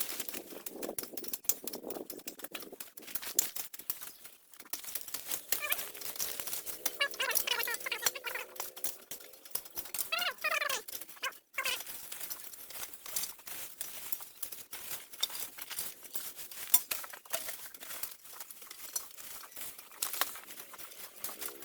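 Dense rustling, scraping and clicking, typical of debris or brush being cleared by hand, with a few brief wavering pitched calls about seven to ten seconds in.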